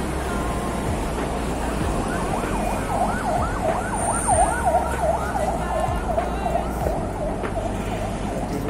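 An emergency vehicle's siren in a fast rising-and-falling yelp, about three sweeps a second. It starts a couple of seconds in and fades near the end, over a steady low traffic rumble.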